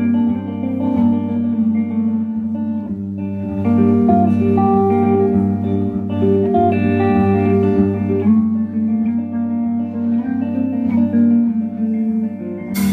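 Live instrumental band music: a hollow-body electric guitar playing a melodic line over a steady electric bass line and drums, with a sudden loud hit near the end.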